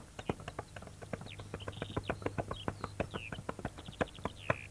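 Hooves of two horses clip-clopping on the ground, many quick irregular strikes.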